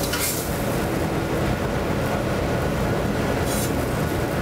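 Steady, loud low rumble of a working restaurant kitchen, with two brief high scrapes, one at the start and one about three and a half seconds in.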